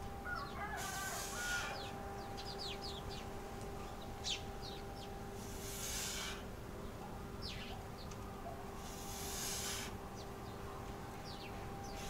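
Sharp, hissing exhalations from a man lifting a kettlebell, one about every three and a half seconds, four in all, keeping time with the reps. Small birds chirp and a hen clucks in the background over a faint steady hum.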